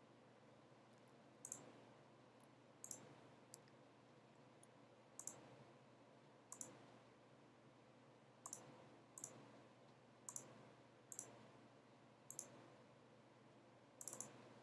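Faint computer mouse clicks, about a dozen spread irregularly, some in quick pairs, over near-silent room tone.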